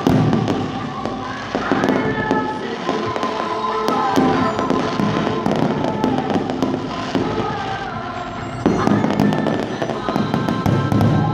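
Aerial fireworks shells bursting one after another with crackling, with bigger bangs at the start and again about nine seconds in, over music playing throughout.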